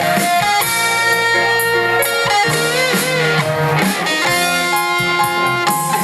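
Live band playing an instrumental break of a Mandopop ballad: an electric guitar lead over the band backing, with one held note wavering in vibrato about halfway through.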